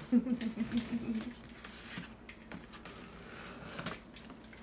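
Box cutter scratching and slicing through packing tape on a cardboard box, with scattered small clicks and scrapes. A brief low murmuring voice in the first second is the loudest sound.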